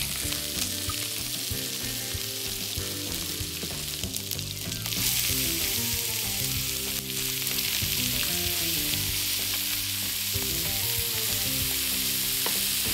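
Pork chops searing in oil in a hot frying pan: a steady sizzle that grows a little louder about five seconds in. Soft background music with stepped notes plays underneath.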